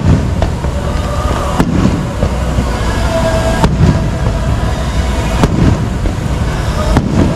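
Fireworks going off: deep booms and crackling bursts, with a few sharp reports, over faint show music.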